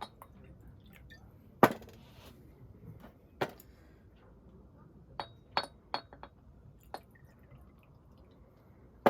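Scattered sharp clinks and knocks of dishes or glassware being handled, the loudest about one and a half seconds in, several in the middle ringing briefly.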